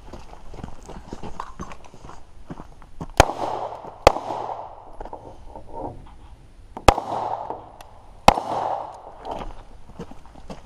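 Four handgun shots: two about a second apart, then a pause, then two more about a second and a half apart, each followed by a short echo. Footsteps on dirt and gravel run between the shots.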